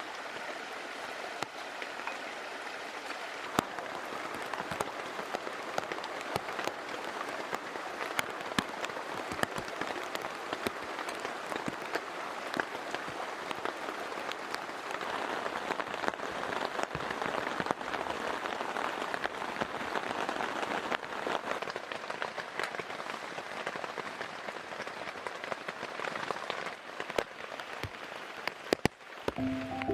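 Steady rain falling, with many single drops tapping sharply through the even hiss.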